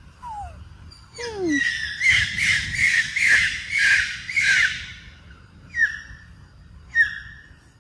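A loud run of sharp, shrill animal calls, about two a second for some four seconds, followed by two single calls near the end. A couple of falling whistled notes come just before the run.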